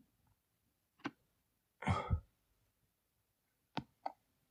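A man clears his throat once, about two seconds in, with a few short clicks before and after.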